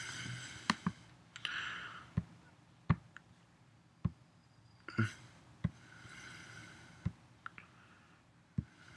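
Computer mouse clicking: sharp single clicks at uneven intervals, about eight or nine of them, with faint soft rustling between.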